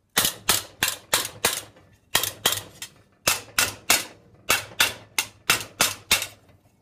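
Rubber mallet striking a sheet of annealed 22-gauge stainless steel over a stake, about eighteen sharp blows at roughly three a second in short runs with brief pauses, forming a second curve in the sheet.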